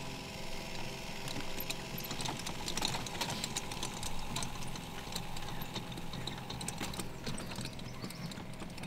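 Wet line-marking cart at work on a grass pitch: the steady hum of its small spray pump, with irregular clicks and rattles from the cart as it is pushed along.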